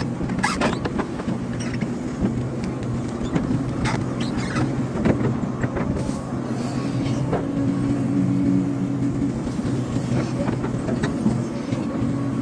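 Hydraulic excavator's diesel engine running steadily, its note rising under hydraulic load for a couple of seconds near the middle, with scattered short knocks.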